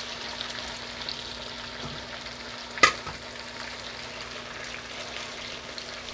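Oxtail pieces sizzling as they fry in oil in a cast-iron skillet, a steady crackle while they brown. A single sharp metallic clink rings out about halfway through.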